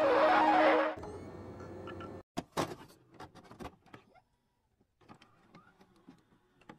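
Video transition sound effects: a music cue swells with a rising whoosh and cuts off abruptly about a second in, followed by scattered digital glitch clicks and crackles that thin out to a few faint ticks.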